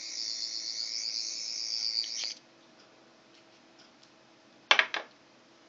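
Sonic screwdriver toy's electronic sound effect: a high, steady electronic whine that cuts off sharply after about two and a half seconds. About two seconds later comes a quick clatter of two or three knocks as the metal-sleeved screwdriver is laid down on a glass desktop.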